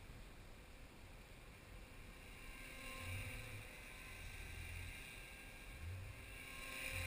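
Small electric RC helicopter, an Align T-Rex 250 in a Hughes 500E scale body, whining faintly as it flies. Its motor and rotor whine grows louder about three seconds in and again near the end, with wind buffeting the microphone.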